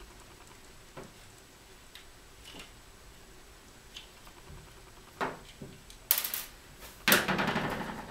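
Small metal parts and tools handled on a work surface during knife disassembly: a few light clicks, then two louder clattering knocks near the end, the second ringing on for about a second.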